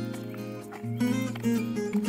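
Background instrumental music: a melody of plucked notes.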